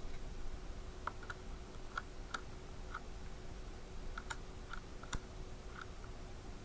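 Light clicks and taps, about a dozen at uneven intervals, over a faint steady hum.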